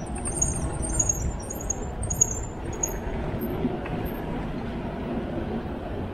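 Wind rumbling on the microphone and road noise from a moving touring bicycle, with a scatter of short high chirps over the first four seconds.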